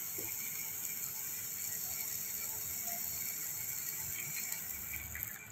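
Grated bottle gourd frying in ghee in a non-stick pan, giving a steady crackling sizzle. The sizzle dies down near the end as milk is poured in.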